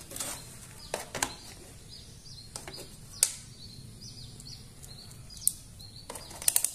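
Clicks and knocks from handling a digital multimeter: the meter is set down on the scale's housing with a sharper knock about three seconds in, and a quick run of clicks near the end as its rotary selector dial is turned. Small birds chirp faintly in the background.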